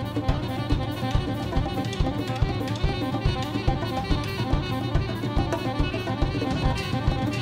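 Instrumental free jazz from a saxophone, drum kit and hand-percussion trio. The drums and percussion keep up a busy, steady stream of hits under a held saxophone line.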